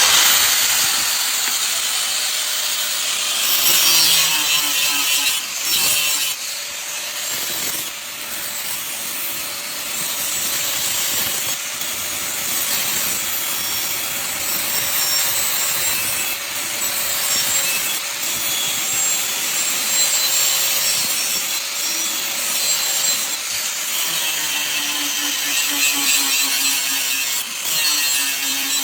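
Electric grinder grinding the steel blade of a bone-chopping cleaver, a steady hiss over the motor's hum, starting suddenly.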